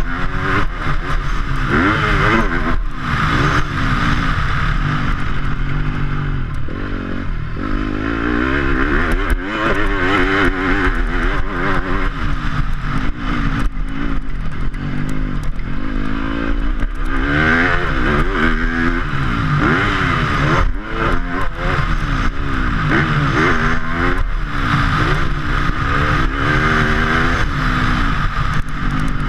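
Yamaha YZ250F's single-cylinder four-stroke engine revving up and down again and again as the motocross bike is ridden hard round a dirt track, with knocks and clatter from the bike over the bumps, heard from a helmet-mounted camera.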